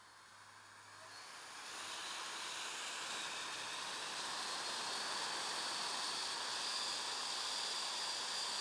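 Battery-powered DIY air umbrella, a handheld electric fan impeller blowing air straight up, spinning up over the first two seconds or so and then running steadily. It makes a rush of air with a high motor whine that creeps slightly upward.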